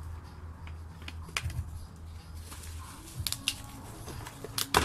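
Plastic zip ties being cut and pulled inside a cardboard box: scattered small clicks and cardboard rustling, with one sharp snap near the end.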